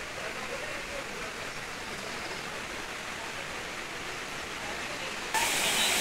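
Steady rush of a waterfall heard from some way off. A little over five seconds in it jumps suddenly much louder and brighter: the close rush of water cascading over rocks.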